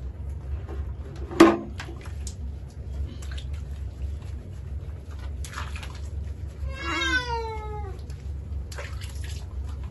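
A domestic cat being bathed lets out one long meow about seven seconds in, falling in pitch as it goes. A sharp knock about a second and a half in is the loudest sound.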